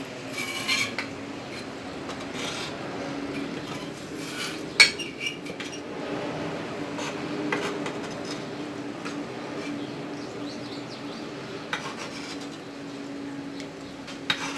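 Metal pans, dishes and utensils clinking and scraping while roasted lamb shanks are handled, with a sharper clank about five seconds in, over a steady low hum.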